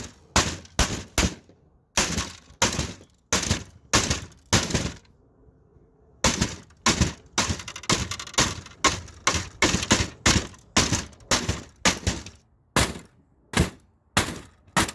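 Hammer blows smashing a printer's plastic casing: sharp cracking strikes, two or three a second, in runs broken by a few short pauses.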